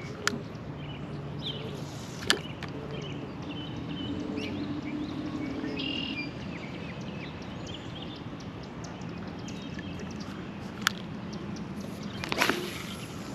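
American bullfrog calling in low, drawn-out drones, with small birds chirping. A few sharp clicks, the loudest about two seconds in and near the end.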